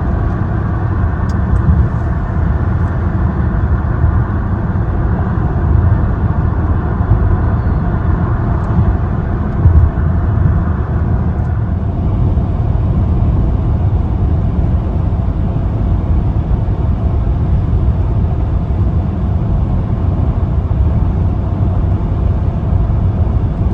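Steady road and engine rumble inside a moving car's cabin, heaviest in the low end, with a higher hum that fades out about halfway through.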